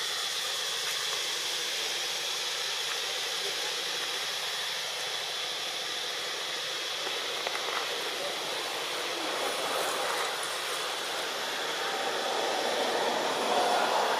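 Steady hissing outdoor background noise with a faint, even high tone running through it; no distinct calls or knocks stand out.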